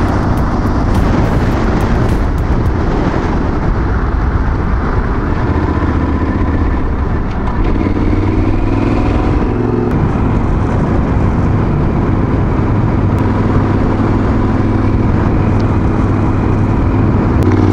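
Motorcycle engine running at road speed with wind noise over the microphone; the engine note dips and then rises a little past the middle as the bike speeds up out of a curve.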